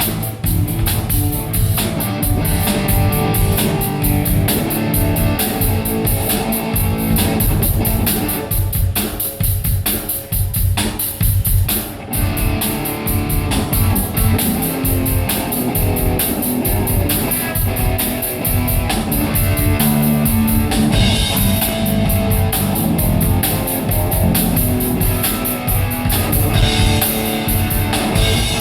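Rock band playing: a drum kit keeping a steady beat under guitar.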